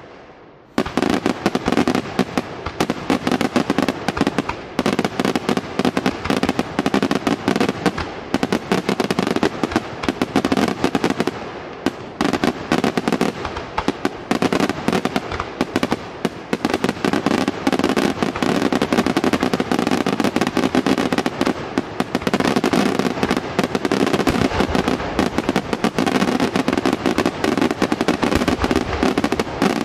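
Aerial fireworks display: a dense, continuous barrage of shell bursts and bangs, many per second, starting about a second in after a brief lull.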